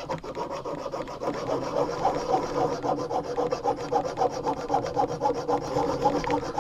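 Small multitool file, a Leatherman's, rasping back and forth on a metal rod in quick, even strokes, about four to five a second.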